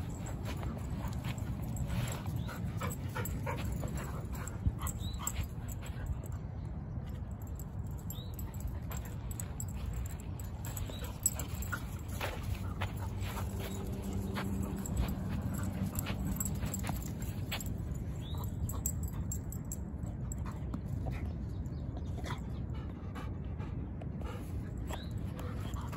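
Dogs fetching tennis balls on bare dirt, giving short whimpering cries, with scattered light clicks and scuffs over a steady low rumble.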